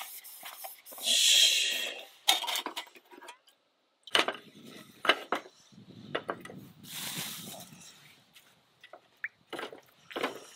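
Stainless steel camp cookware being handled and wiped out with paper towel: scattered metal clinks and knocks, with loud rubbing of paper against metal about a second in and again around seven seconds.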